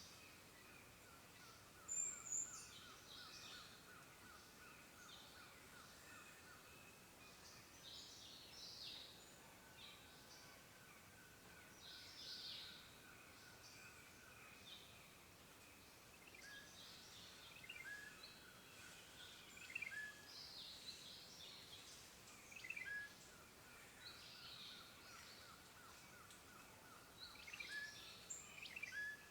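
Faint woodland birdsong: several birds calling and chirping, with short high notes and a rapid trill that fades in and out.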